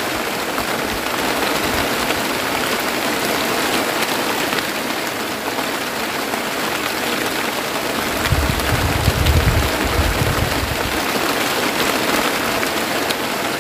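Steady rain pouring down. A low rumble swells for about three seconds, starting about eight seconds in.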